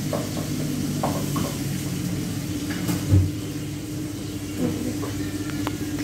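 A whisk clinking lightly now and then against a frying pan over a steady low hum, with one dull thump about three seconds in.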